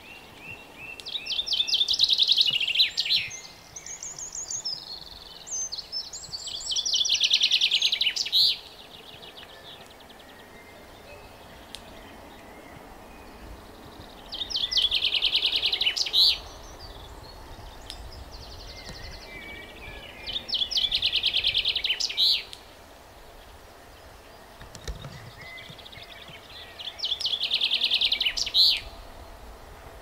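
Male common chaffinch singing: five song phrases about six seconds apart, each a rapid two-second trill ending in a sharp flourish, with softer chirps between the first two.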